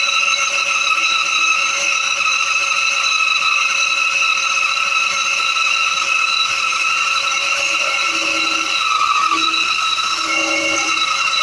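Titan bandsaw running and resawing a thin veneer strip off a wooden board, a steady whine of several held tones, with a little extra lower tone coming in over the last few seconds.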